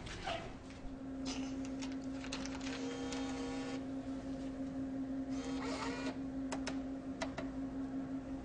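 A steady humming tone, like a small machine running, with a few sharp clicks and knocks near the end.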